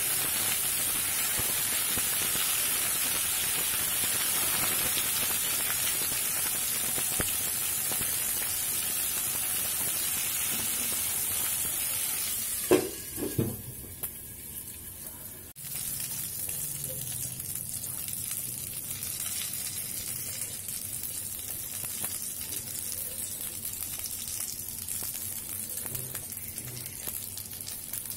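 Stuffed parwal sizzling as they shallow-fry in oil in a kadhai, stirred now and then with a wooden spatula. A couple of sharp knocks come about halfway through, where a glass lid goes onto the pan; after them the sizzle is quieter.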